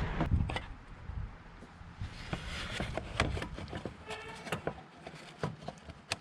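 Scattered light knocks and clicks of car parts and tools being handled during clutch reassembly.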